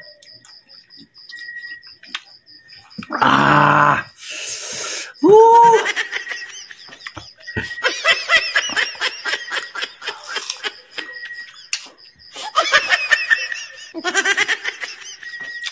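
A man laughing in several bursts, the longest a rapid stuttering laugh a few seconds long, with a short hiss of breath before it, as he reacts to eating sour kamias and hot chili.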